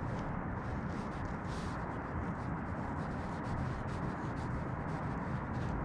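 Steady low rushing background noise, with faint rubbing and a few light clicks as the cap of a tire pressure monitor sensor is screwed back on while a tool holds it.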